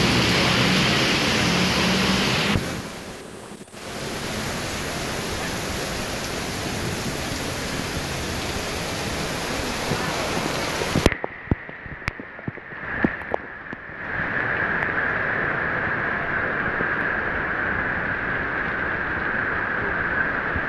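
Torrential rain pouring down, a dense steady hiss. About halfway through the sound changes abruptly: it drops, a few sharp taps come through, and then a steadier, thinner hiss of rain follows.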